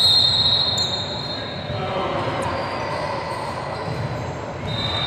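A referee's whistle blown in a long shrill blast that tails off after a second or so, then sounds again near the end, over the noise of voices in a gymnasium.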